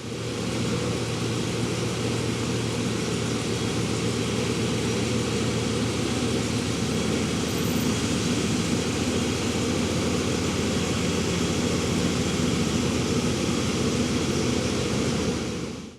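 1976 Cadillac Fleetwood's 500 cubic-inch V8 running steadily at low speed as the car is driven in.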